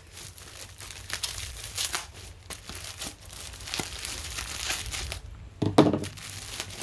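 A plastic mailer package being slit and torn open with a knife, its plastic crinkling and rustling in irregular bursts, with one louder bump a little before the end.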